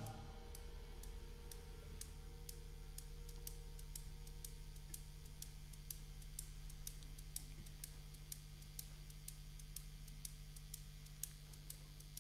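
A pause in the song: the last note fades in the first few seconds, leaving a steady low mains hum from the band's amplifiers and faint irregular clicks.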